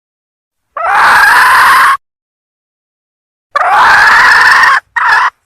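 Female junglefowl (hen) calling, a lure call for drawing in junglefowl cocks: two loud, harsh calls of about a second each, then a short third one, with dead silence between them.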